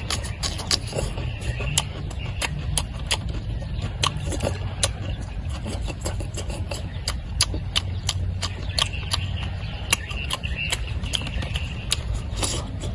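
A person chewing pork belly close to the microphone: many quick, irregular wet smacks and crunchy crackles, over a steady low rumble.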